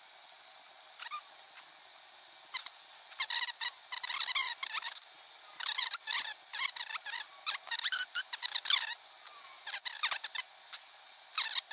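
Small metal wrench clicking and scraping against the tiny nuts and screws of a miniature model gasoline engine as it is bolted together, in irregular bursts of light metallic clicks with short pauses.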